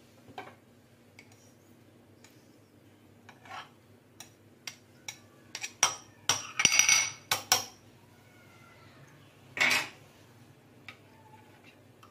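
Metal cutlery clinking and scraping against a glass mixing bowl as a knife knocks butter into melted chocolate: scattered taps, a quick run of sharp clinks about halfway through, and one more scrape near the end.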